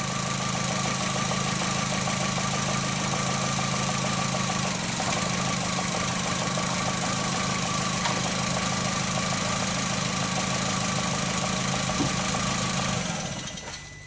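2004 VW Jetta's 2.0-litre four-cylinder engine idling steadily with its number 3 cylinder misfiring, the plug wire giving no spark. The engine stops near the end and its sound fades away.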